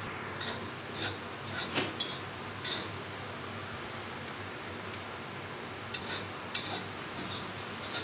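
A metal spatula scraping and tapping against a wok while stir-frying a dry, crumbly mix of ground dried shrimp and grated coconut. The clicks and scrapes come in scattered strokes, with a quieter stretch in the middle. A steady low hum runs underneath.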